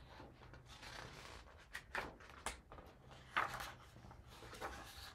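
Pages of a hardcover picture book being turned and handled: several short paper swishes and rustles, the loudest about two and three and a half seconds in.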